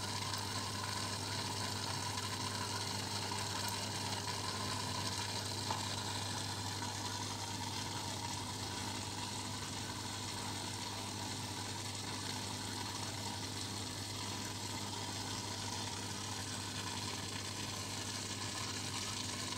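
Aquarium pump running with a steady low hum under a continuous hiss of moving water and bubbles.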